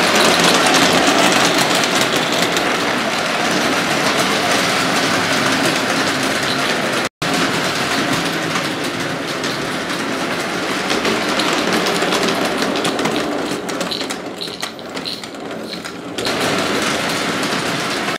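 Gauge 1 tinplate Carette live-steam locomotive and tinplate coaches running round a tight circle of tinplate track, a steady dense clatter of wheels over the rails. It cuts out for an instant about seven seconds in and is quieter for a few seconds near the end.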